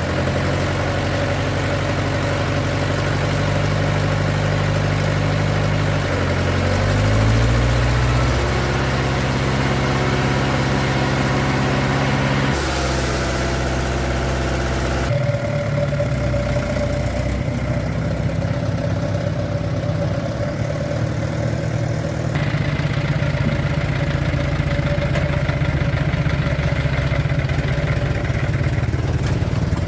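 Vintage truck engine running, its pitch rising about seven seconds in as it picks up speed, then running steadily; the sound changes abruptly twice partway through.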